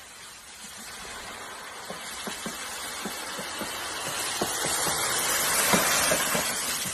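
Mountain bike tyres ploughing downhill through deep dry leaf litter: a rush of rustling leaves with many small crackles. It grows steadily louder as the bike comes close and is loudest just before the end.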